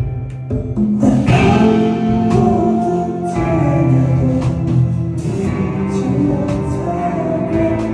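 Live rock band performance: guitars and drums playing with a sung vocal, heard through a concert crowd recording.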